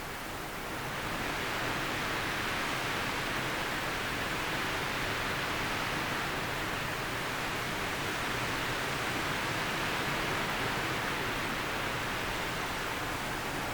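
Storm wind rushing through trees: a steady rushing hiss that swells about a second in and holds.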